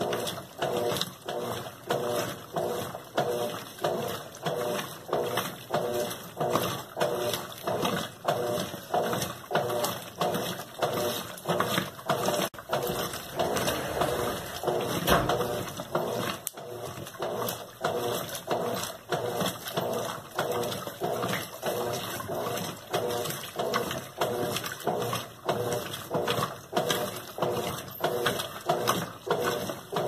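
Colormaq LCA11 top-load washing machine agitating a wash load, its agitator swishing water and clothes back and forth in a steady rhythm a little more than once a second. The machine has a transmission fault that makes it noisy, which the repairer calls bearing noise.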